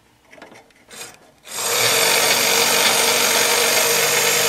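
A few faint clicks as a clip lead is put on the motor wires, then, about a second and a half in, the toy's small electric motor, fed about 3 volts, starts a loud, steady buzz with a low hum under it. The motor is energised but not turning.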